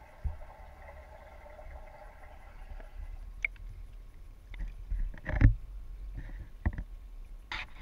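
Steady underwater hum heard through a submerged camera in a koi pond, which cuts off about three seconds in as the camera is lifted out of the water. It is followed by a few knocks and thumps of the camera being handled, the loudest a little past the middle.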